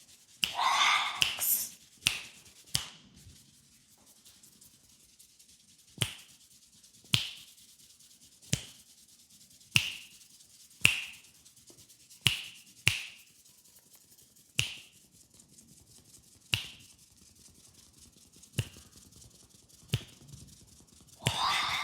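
Sharp finger snaps close to the microphone, single snaps spaced irregularly about one to two seconds apart, with a brief rubbing of hands on hair near the start and again near the end.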